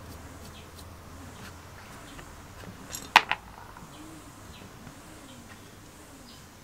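Two sharp metallic clicks about three seconds in, the first much louder, from a screwdriver working a small screw loose from a brass burner valve body. Faint bird chirps in the background.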